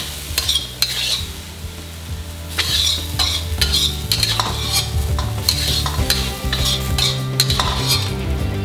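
Metal spatula scraping and tapping around a steel wok as chopped celery is stir-fried, with a light sizzle. The clicks and scrapes come in quick, irregular strokes throughout.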